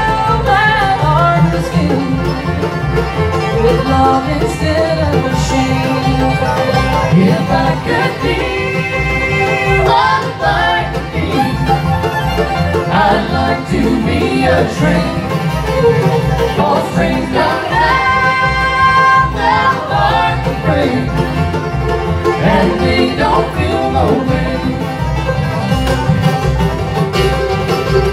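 Live bluegrass band playing through stage speakers: banjo, fiddle, acoustic guitar, mandolin, resonator guitar and upright bass, with a steady driving beat.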